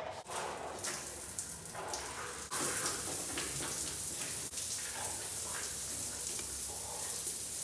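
Water running in a tiled shower cubicle, a steady hiss that gets louder about two and a half seconds in as the flow comes on fully.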